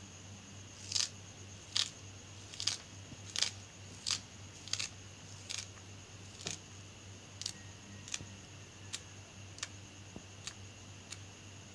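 Spring onions being cut by hand over a glass plate: a crisp cutting click roughly every three-quarters of a second, fainter toward the end.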